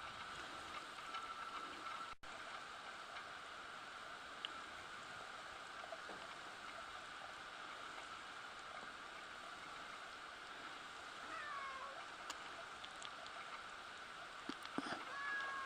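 A faint cat meow, one falling call about eleven seconds in, over a steady background hiss.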